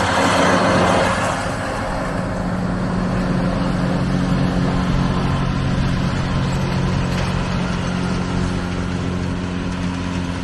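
Deutz-Fahr tractor's diesel engine running at a steady pitch while pulling a rear-mounted mower. It is louder in the first second or two as it passes close, then settles into a steady drone as it draws away.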